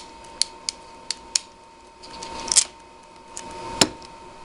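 Hand crimping tool squeezing an RJ45 connector onto a Cat 5 cable, a series of sharp clicks with a louder click near the end.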